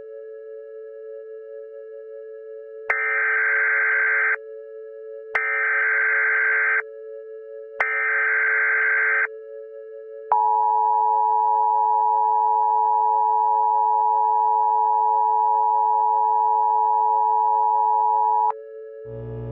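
Emergency Alert System signal over a steady low drone: three identical short bursts of screeching digital SAME header data, a second apart, then the harsh two-tone EAS attention signal held steady for about eight seconds before cutting off.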